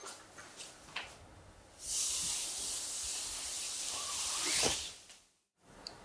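A fabric tablecloth being spread over a tabletop and smoothed by hand, rustling and sliding in a steady hiss for about three seconds before it fades. A few faint knocks come before it.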